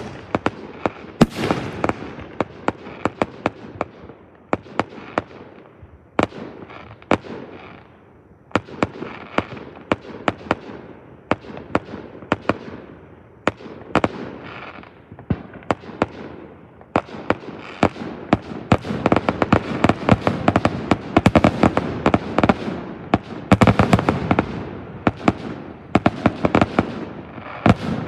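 Aerial fireworks bursting: a steady run of sharp bangs, a short lull about a third of the way in, then rapid pops in dense clusters through the second half.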